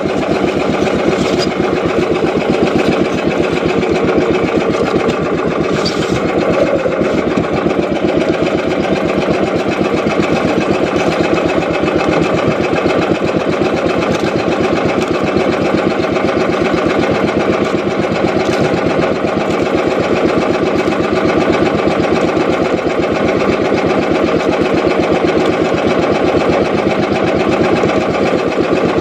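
Small fishing boat's engine running steadily at a constant speed, a dense rapid firing rhythm with no change in pace.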